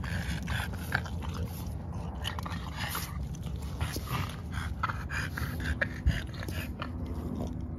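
French bulldog puppies and an adult French bulldog playing close up: snuffling, licking and mouthing sounds with many small clicks and scuffs, over a steady low hum.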